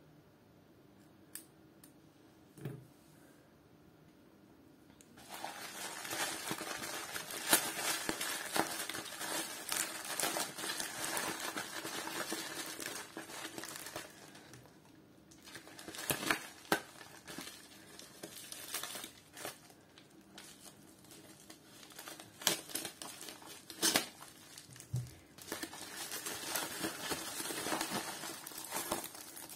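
A couple of small plastic clicks, then, from about five seconds in, a white plastic postal mailer bag crinkling and rustling with sharp crackles as hands handle it and open it.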